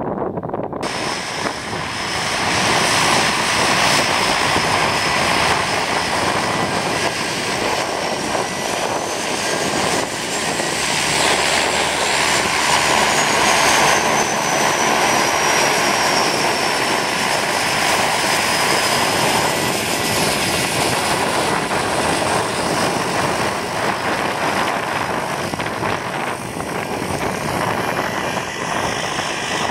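A de Havilland Canada DHC-6 Twin Otter's two Pratt & Whitney Canada PT6A turboprops running as the aircraft taxis close by, a steady propeller drone with a high turbine whine that rises and then falls in pitch midway.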